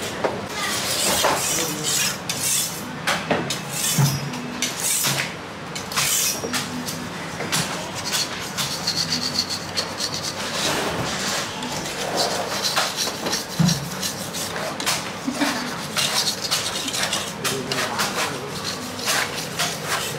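Machete chopping coconuts: irregular sharp knocks and clatter.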